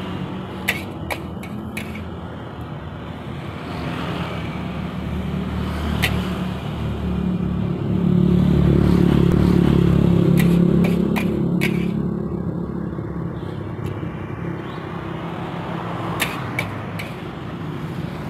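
Steady low rumble that swells loudest for a few seconds in the middle and then fades, with a few sharp clicks scattered through.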